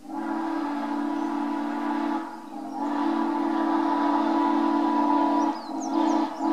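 A steam locomotive's chime whistle blowing: a long blast, a second long blast, a short one, and then another long blast starting at the end.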